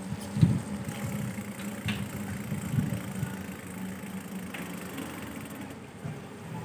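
Ride noise from a bicycle rolling on a wet road: a steady low hum with a few short knocks from bumps in the road.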